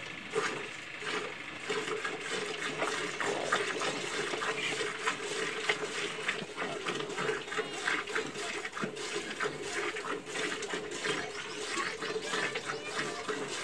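Cow being milked by hand into a steel pail: rapid, rhythmic squirts of milk spraying into the pail.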